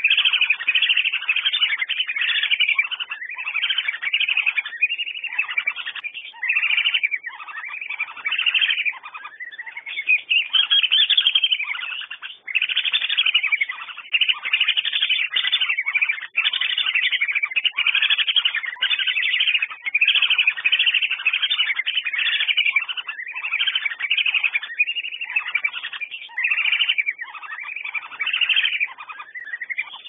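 Whistling ducks (Dendrocygna) calling: a continuous, dense run of short, repeated high whistles with brief gaps.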